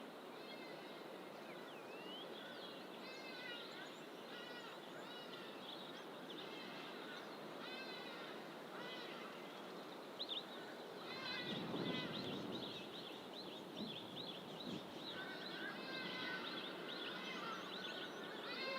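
Several wild birds calling from dense fynbos bush: short chirping phrases repeated about once a second, with another bird joining lower in the last few seconds. A steady rushing noise lies underneath, swelling louder about midway.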